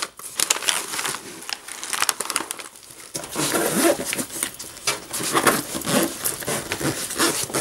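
Sheets of paper crinkling and rustling as they are pushed into a bag's mesh pocket, with the nylon fabric of the bag rustling as it is pressed and handled. It comes as a run of short, scratchy rustles.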